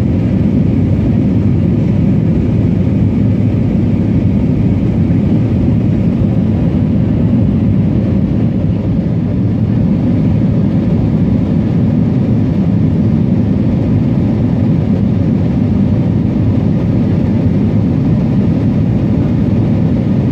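Airbus A321 cabin noise in the climb after takeoff: a steady, loud low rumble of the jet engines and rushing air, heard inside the passenger cabin.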